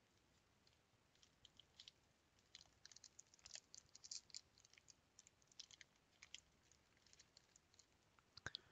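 Faint crinkling and crackling of a foil trading-card pack being worked and torn open by gloved hands, as scattered soft ticks that come most thickly in the middle seconds. The wrapper is hard to open.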